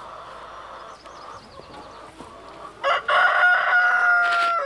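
Rooster crowing once, starting about three seconds in: a loud, long held call.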